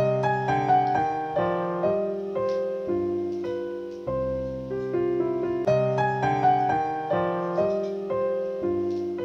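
Background piano music: a gentle, even run of single notes, about two a second.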